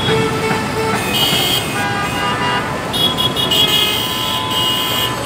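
Busy road traffic, engines running under repeated vehicle horns: a short high horn about a second in, then a longer high honking from about three seconds in.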